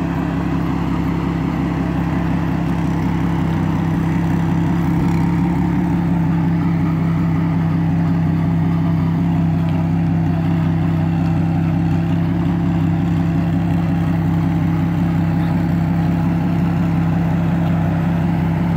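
2010 Camaro's twin-turbocharged 3.6-litre LLT V6 idling steadily, an even hum that never changes pitch.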